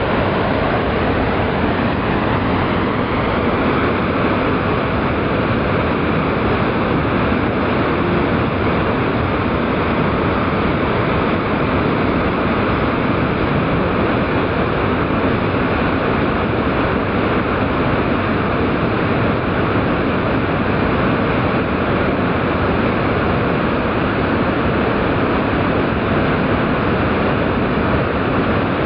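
Broad waterfall pouring over a wide ledge into a foaming pool: a steady, even rush of falling water. The recording is slowed to quarter speed.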